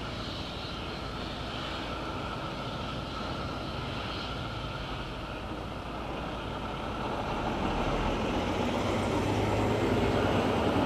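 A corn truck's engine approaching and growing louder over the last few seconds, over a steady drone of farm machinery.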